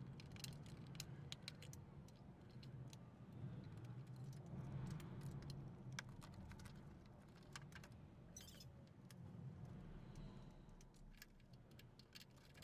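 Near quiet: faint, scattered small clicks and light rattles over a low hum.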